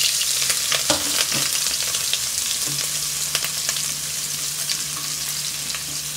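Sliced onions and green chillies sizzling in hot mustard oil with panch phoron, with scattered crackling pops; the sizzle gradually eases as it goes on.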